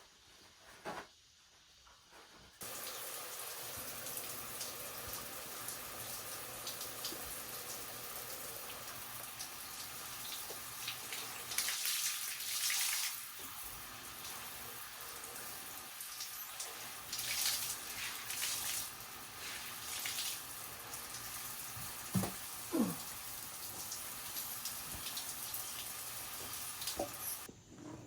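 Steady running water, starting and stopping abruptly, with a few louder splashing stretches about twelve and eighteen seconds in and two short knocks a little later.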